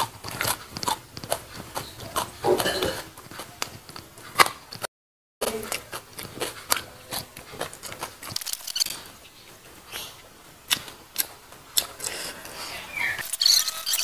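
Close-miked chewing and lip-smacking of a person eating with her hands, a steady run of short sharp mouth clicks and smacks. The sound cuts out completely for about half a second around five seconds in.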